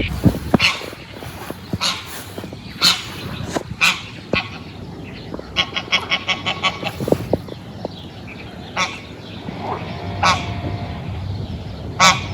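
Farmyard waterfowl, geese or ducks, calling with loud, short honks at irregular intervals, and a quick run of repeated calls about six seconds in.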